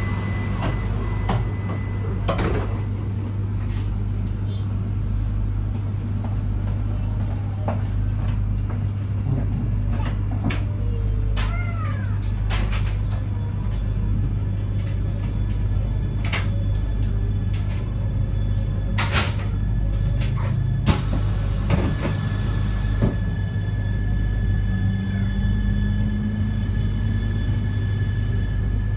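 Interior running sound of a JR East E3-2000 series Shinkansen pulling away from a station. The Hitachi IGBT VVVF inverter's magnetic whine slides and rises in pitch as the train accelerates, over a steady low hum, with scattered clicks and knocks from the car.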